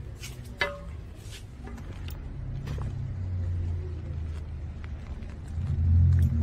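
A few short clicks and knocks, then the low rumble of a car engine that builds from about two seconds in and grows loudest near the end.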